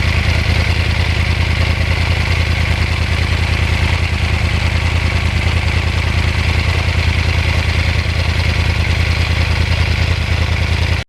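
2009 Yamaha R1's crossplane inline-four engine idling steadily, with a fast, even low pulse and no revving.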